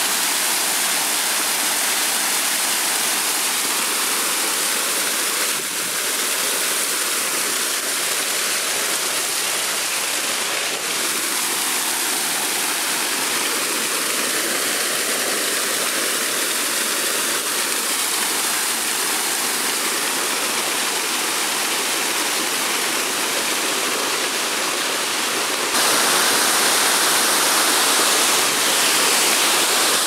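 A small waterfall on a mountain stream, white water pouring over rock in a steady rush. The sound steps up a little louder near the end.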